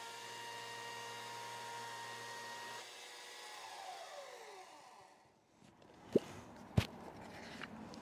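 Chainsaw on a Logosol chainsaw mill running steadily with a whine, then switched off about three seconds in, its pitch sliding down as it winds down to a stop. Two sharp knocks about half a second apart follow near the end.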